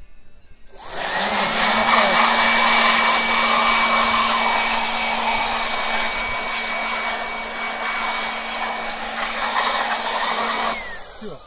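Corded electric handheld blower switched on about a second in, its motor whine rising to a steady high pitch over a low hum and rushing air, blowing the remaining bees out of a beehive honey super. Near the end it is switched off and winds down with a falling whine.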